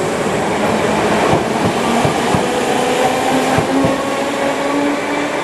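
Merseyrail Class 507/508 electric train running past the platform: steady motor hum and wheel-on-rail noise, with a few sharp clacks as the wheels cross rail joints, slowly fading as the last carriage clears.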